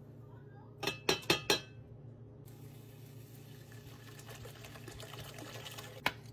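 Four quick, sharp clinks close together about a second in, then water pouring steadily into an enamel coffee pot of coffee grounds, ending with one more sharp clink.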